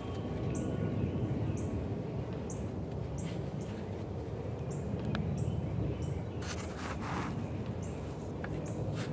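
Small birds chirping, short high chirps again and again over a steady low rumble, with a brief rustle about seven seconds in.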